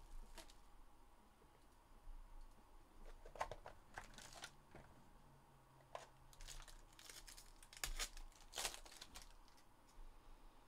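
Faint tearing, crinkling and scraping of card packaging as a Panini Obsidian hobby box is opened by hand and the pack inside pulled out, in scattered short rustles and clicks.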